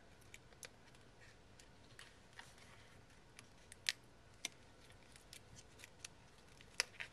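Faint, scattered light clicks and crinkles of paper and thin plastic craft materials being handled, the sharpest about four seconds in and another near the end.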